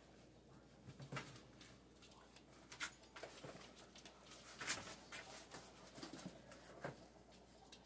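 Puppies moving about and playing: faint scattered clicks and taps of paws, claws and small objects, with one sharper tap a little past the middle.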